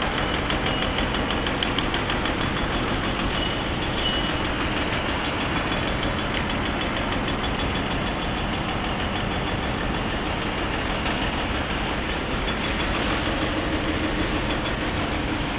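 Steady mechanical din of engines running at a busy construction site, with a fast, even rattle throughout.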